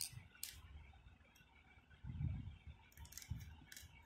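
Handling noises: a sharp click about half a second in, two soft low knocks, then a run of light clicks near the end.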